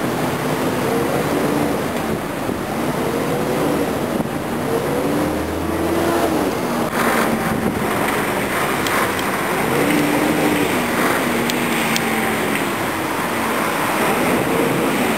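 Tour bus engine running under the open upper deck, its pitch rising and falling again and again as it pulls away and changes gear, with city traffic around and wind on the microphone.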